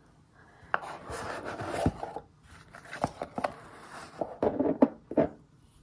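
Box of fountain pen ink being unpacked on a wooden desk: the inner box is slid and pulled out of its cardboard sleeve with scraping and rubbing, followed by a run of light knocks and clicks.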